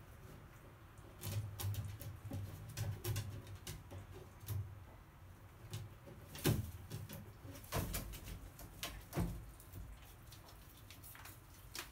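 A crow handling a piece of deep-fried tofu on wooden perches: soft rustling and low thumps, then three sharp knocks on the wood about a second and a half apart, followed by lighter taps as it pecks at the tofu held under its foot.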